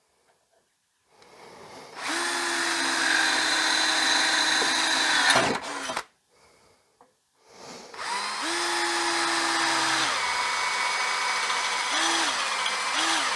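Handheld power drill boring 5 mm holes through steel strap. It spins up and runs for about four seconds, stops briefly, then starts again and runs to the end, its motor speed dipping a few times near the end as the trigger is eased.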